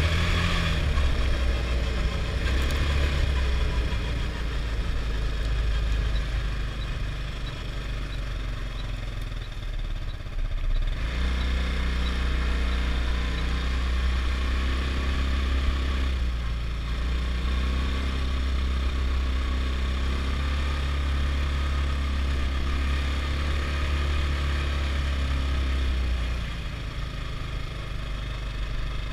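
Adly Hurricane 320 quad's engine running while riding, at a mostly steady pace. Its note rises and falls a few times with the throttle.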